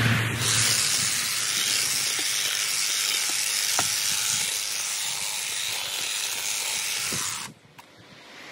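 Honda HHH36AXB battery hedge trimmer running and cutting through hedge foliage: a steady, hissing buzz that cuts off suddenly about seven and a half seconds in as the trigger is released.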